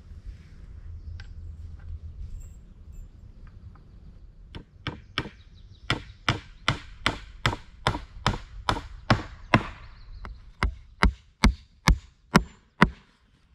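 Hammer nailing weathered wooden planks together: a steady run of sharp strikes, about two or three a second, beginning about four and a half seconds in, with a short break near ten seconds before more blows.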